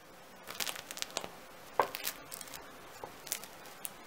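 Crisp crust of a round home-baked yeast loaf crackling under fingertips pressing on it: faint, scattered crackles and small taps.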